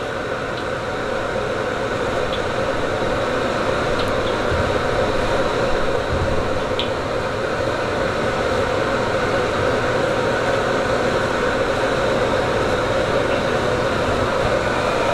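Steady roar of kitchen equipment running, with a low hum in it, swelling slightly over the first couple of seconds; a few faint ticks on top.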